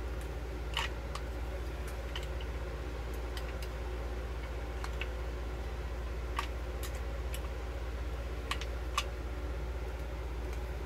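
Scattered, irregular clicks from a manual caulk gun as its trigger is squeezed to push clear 100% silicone out of a freshly pierced tube, with the silicone not yet flowing. A steady low hum runs underneath.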